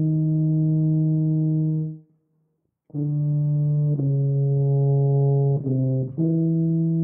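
Solo tuba playing a slow melody one note at a time: a held note, a short rest about two seconds in, then several more notes.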